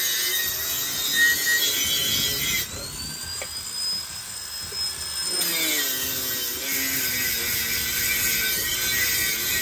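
Angle grinder with a wire cup brush scouring paint off a steel cover, a harsh metal-on-metal grinding with a wavering motor tone. About three seconds in the brush comes off the metal and only a quieter steady whine is left for a few seconds. Then it bites into the steel again.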